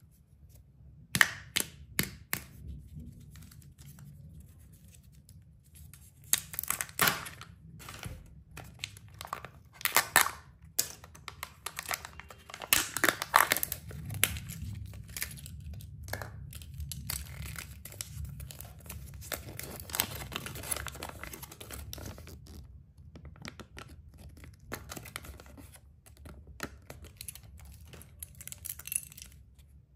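Kinder Joy egg being unwrapped and opened by hand: its foil wrapper crinkling and tearing, and the foil seal peeling off the plastic cream cup. The crackles and clicks come in irregular bursts, thinning out in the last several seconds.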